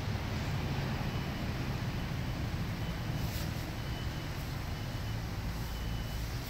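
Steady low rumble of a running vehicle, with faint short high peeps repeating every second or so.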